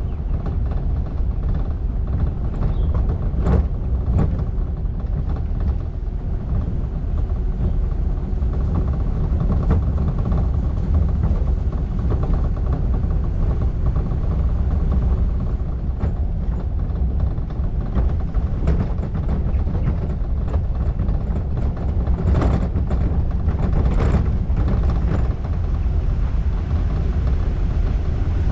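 Car rolling slowly over a rutted dirt track, heard through a camera mounted on its roof: a steady low rumble with a few sharp knocks from bumps, two a few seconds in and two more past the middle.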